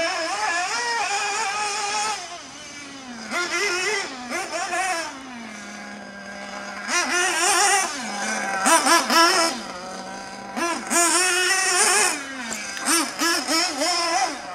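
Nitro engine of a 1/8-scale Losi off-road RC buggy (Novarossi Beat5) revving hard and dropping back to idle, over and over. The pitch climbs under throttle, falls to a steady low idle for a second or two twice, then picks up again.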